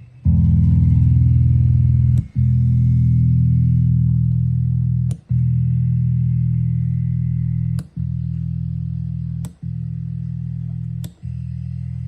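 Electric bass guitar played through a Roland CB-30 bass amplifier: a series of low notes, each held for a second or two and then cut off with a short click before the next. Six notes in all, the last few a little quieter.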